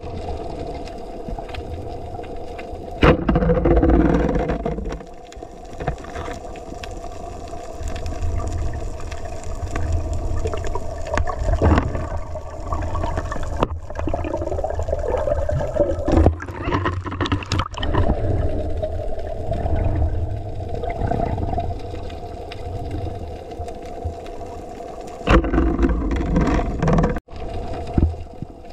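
Muffled underwater sound on a submerged camera: a steady low rumble with a constant hum, and louder rushes of water movement a few seconds in and again near the end.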